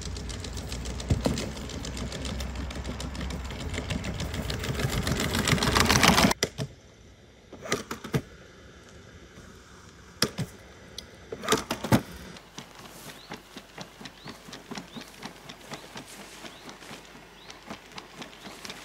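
Quadruped robot dog walking over rough ground: rapid mechanical clicking and ticking from its legs, with a soft regular tread of about two to three steps a second later on. A sharp cut about six seconds in drops the sound to a quieter shot with a few scattered knocks.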